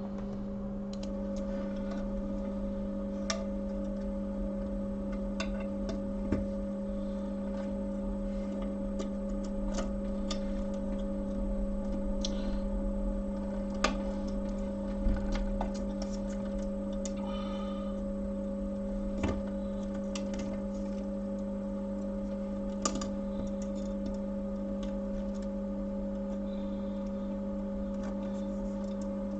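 Steady electrical hum from repair-bench equipment, with scattered light clicks and taps from handling small tools and phone parts.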